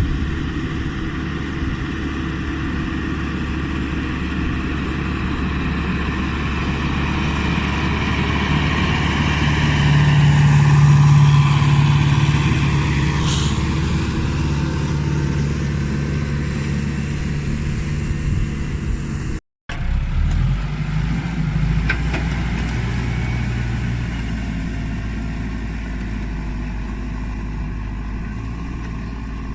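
Case CX80 tractor's diesel engine running steadily under load while pulling a four-furrow plough through heavy soil. It swells louder a third of the way in, then the sound cuts out for a moment about two-thirds through and the engine carries on.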